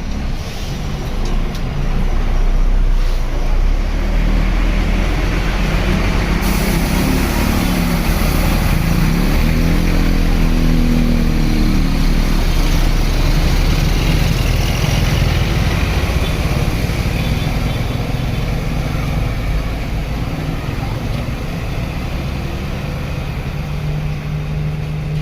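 A large bus engine running close by: a loud, steady rumble that swells about two seconds in and eases a little in the second half.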